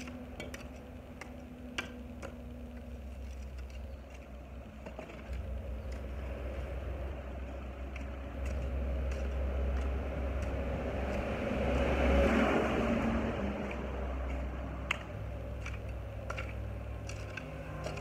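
Light knocks and scrapes of a hoe chopping into garden soil over a low steady rumble. A vehicle passes, swelling to its loudest about twelve seconds in and then fading.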